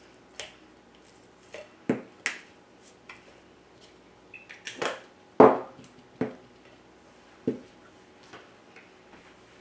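Irregular clicks and knocks of kitchen utensils and dishes being handled during food preparation. The loudest is a heavier knock about five and a half seconds in.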